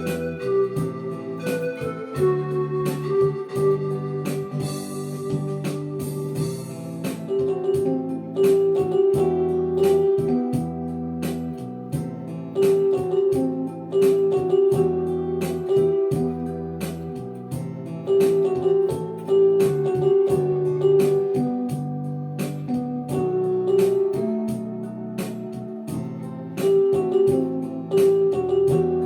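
Instrumental music played on an electronic keyboard or synthesizer: held organ-like chords over a bass line, with a melody on top and a steady beat.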